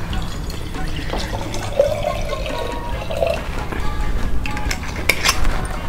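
A drink poured from a small bottle into a glass jar, the liquid splashing and filling, over steady background music.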